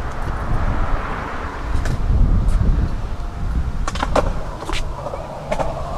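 Skateboard wheels rolling fast over concrete with a steady rumble, and a few sharp clicks as the wheels cross pavement joints.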